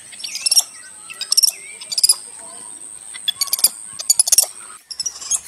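Short bouts of rapid, high-pitched chirping calls, about one a second, some with lower gliding squeaks, over a steady high whine that stops near the end.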